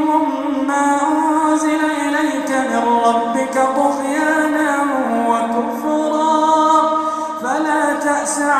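A man's solo voice reciting the Quran in a melodic, chanted style. Long held notes glide smoothly in pitch, dipping about a third of the way through and rising quickly near the end.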